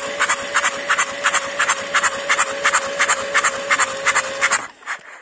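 Starter cranking a Kubota Z600 two-cylinder diesel with its injectors out of the head, a steady whine under sharp, hissing pops about four to five times a second as the injectors spray into open air. It stops shortly before the end. This is a spray test of the injectors, one of which is suspected of being stuck solid.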